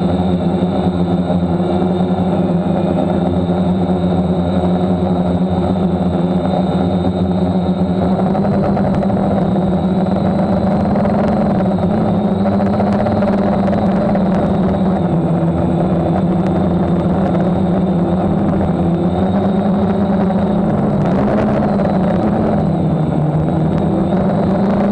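DJI F550 hexacopter's six brushless motors and propellers in flight, heard close up from a camera on the frame: a loud steady drone with a high whine, its pitch sagging and recovering a couple of times near the end.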